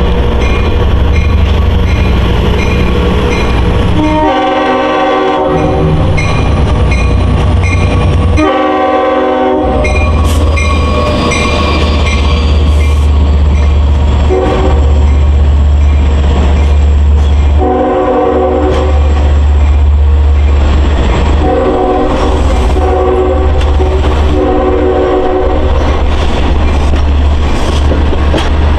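DM30AC diesel locomotive running with a heavy low engine rumble while its horn sounds a series of blasts: two long blasts, then about five shorter and longer blasts in quick succession.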